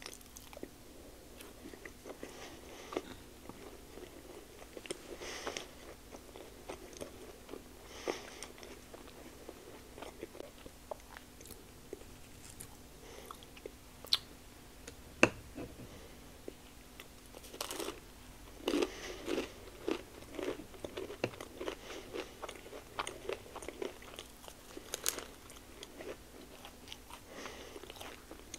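Eating sounds: biting and chewing, first on a blueberry pancake-wrapped sausage on a stick, then on cheesy chicken taquitos, with a dense run of bites and chewing a little past halfway. A single sharp knock about halfway through is the loudest sound.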